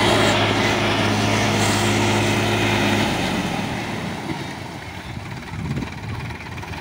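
Sonalika tractor's diesel engine running steadily while working a flooded paddy field, a low even hum. About three seconds in it drops away to a fainter rumble.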